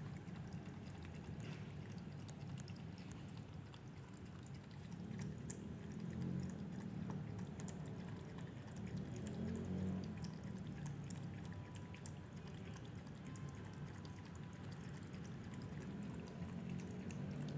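A cat lapping water from a bowl: small wet ticks over a steady low background hum.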